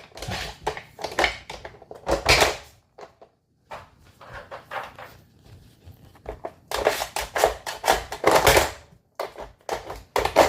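Weimaraner puppy pawing and nosing at a dog food puzzle toy: irregular clatters, knocks and scrapes of the toy's pieces as he works at a drawer, bunched in two flurries.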